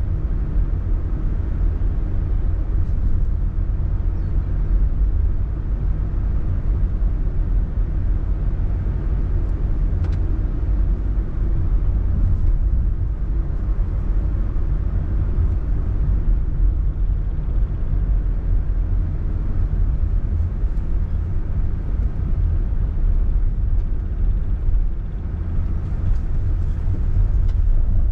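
A car on the move, with a steady low rumble of engine and road noise that stays even throughout.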